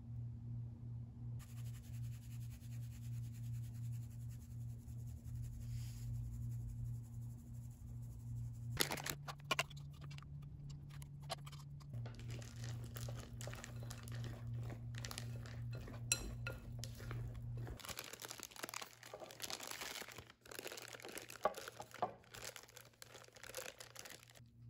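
Kitchen handling sounds: dishes and utensils clinking and paper crinkling, scattered clicks and rustles. A steady low hum runs underneath and stops about 18 seconds in.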